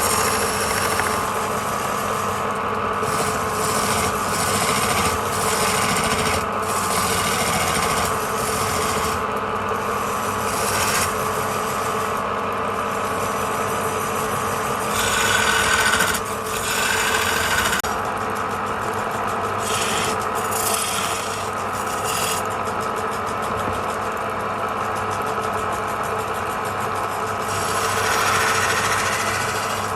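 Wood lathe motor running steadily while a turning tool cuts and scrapes the spinning wood in repeated passes.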